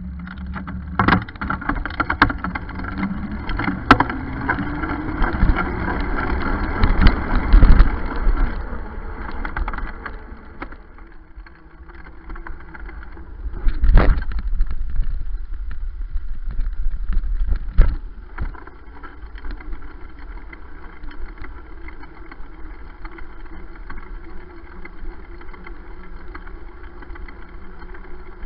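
Road rumble and wind noise from a moving bicycle, picked up by a camera mounted on the bike. It is louder early on and again about halfway through, with several sharp knocks as the bike jolts over bumps.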